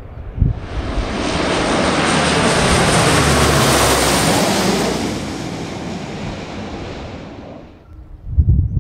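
McDonnell Douglas F-4EJ Kai Phantom's twin J79 turbojets passing low overhead with the landing gear down. The jet roar swells from about half a second in, holds loud for a few seconds, fades, then cuts off abruptly near the end, leaving low wind rumble on the microphone.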